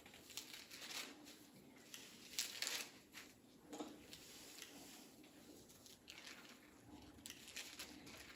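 Near silence: room tone with a few faint, brief rustles and soft taps.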